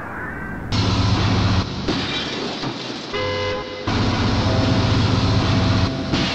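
Spliced sound-effect snippets: a low, horn-like droning tone that cuts in and out abruptly several times, with a short stretch of higher steady tones about three seconds in.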